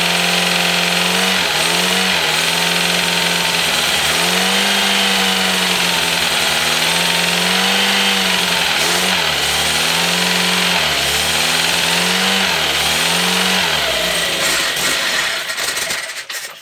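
Freshly rebuilt carburettor petrol engine running on one of its first starts, its speed dipping and picking up again several times, then dying away and stopping near the end.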